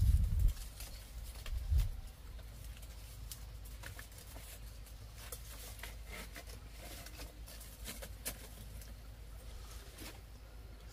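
Small wood fire crackling with scattered sharp pops and light clicks as sticks are laid on it, with two dull low thumps in the first two seconds.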